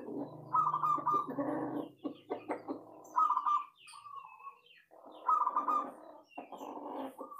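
Zebra dove (perkutut) cooing in three bursts of rapid, staccato trilled coos, about a second in, about three seconds in and about five seconds in. A thin whistled note from another bird falls between the second and third bursts, over a rough background din.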